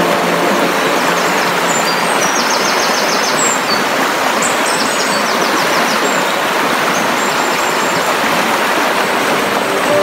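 Steady rush of flowing water from a mountain stream, with small birds chirping high above it and giving two quick trills, a few seconds in and again about midway.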